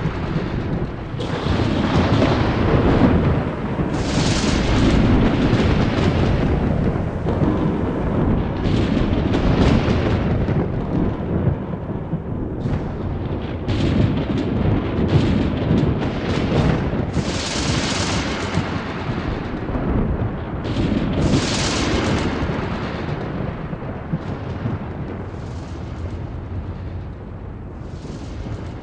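Heavy continuous rumbling broken by sharp blasts at irregular intervals, a second or several apart, easing off near the end.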